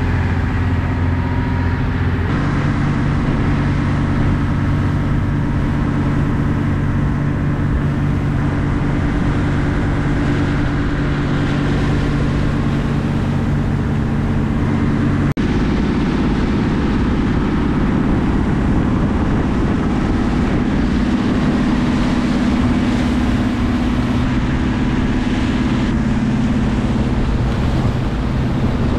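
An old 25-foot cabin cruiser's engine running steadily under way, a low hum of several pitches. The note shifts slightly about two seconds in and again about halfway through.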